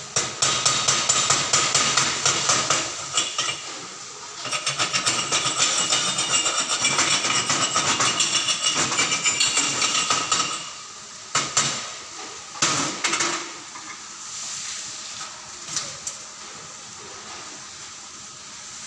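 Chipping hammer rapidly tapping along a fresh stick-weld bead on steel to knock off the slag, with fast metal-on-metal taps. About eleven seconds in, the tapping stops, leaving a few separate knocks.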